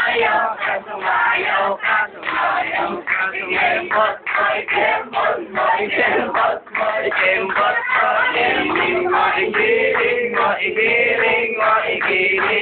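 Music with several people singing together, loud and steady throughout, recorded on a phone so it sounds dull with no high end.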